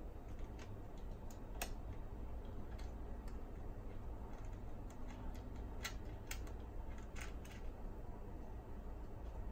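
Scattered light clicks and taps from handling the small parts of an opened boombox chassis, a dozen or so irregular ticks that bunch up about six to seven seconds in, over a steady low hum.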